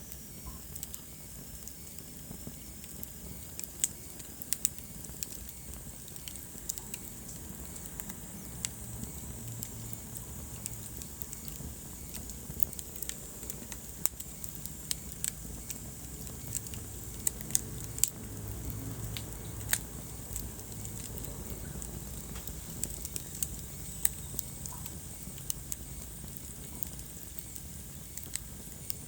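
Wood fire crackling, with irregular sharp pops and snaps scattered through it over a low steady rumble of the flames.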